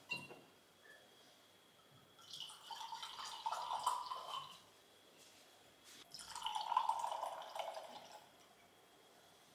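A cork pulled from a white wine bottle with a short pop, then white wine poured from the bottle into a stemmed wine glass in two pours of about two seconds each.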